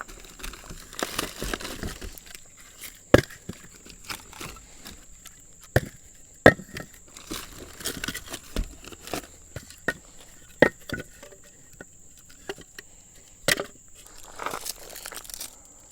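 Firewood being handled and laid for a campfire: pieces of wood knocking and clacking together in irregular sharp knocks, a few of them loud.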